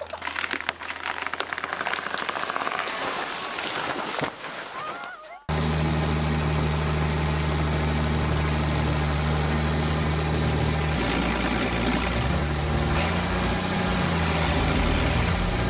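A clattery, noisy mechanical sound, then after a sudden cut a heavy engine running steadily under load. Its pitch rises for a few seconds about two thirds of the way through, as it revs up.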